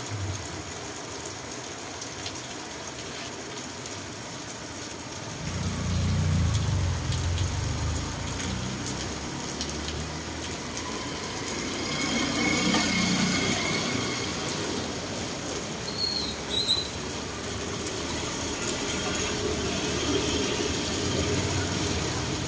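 Steady rain falling on a flooded street, with motor vehicles passing on the wet road now and then: a low rumble about a quarter of the way in and a louder wet swish around the middle.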